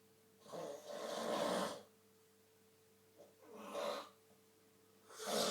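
A man snoring in his sleep: a long snoring breath about half a second in, a shorter one around three and a half seconds, and another starting near the end.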